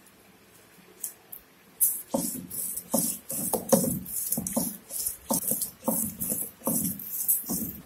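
Stone roller of an ammikkal grinding wet masala paste on a flat stone slab, pushed back and forth in quick strokes of stone scraping on stone, about two or three a second. The strokes begin after a near-silent second or two.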